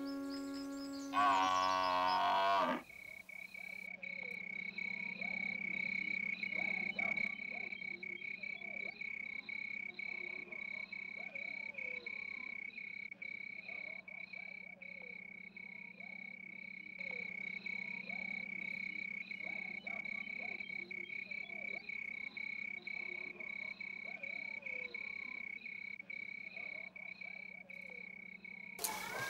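Night ambience: a steady, high-pitched insect trill, typical of crickets, with frogs croaking faintly underneath. About a second in, a brief louder call with a wavering pitch cuts in for a second and a half, just before the night sounds take over.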